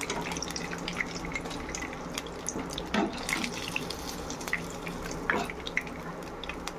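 Fish pieces shallow-frying in hot oil in a nonstick pan, sizzling and crackling steadily. A metal slotted spatula knocks against the pan a couple of times, about three seconds in and again near the end, as the fried pieces are lifted out.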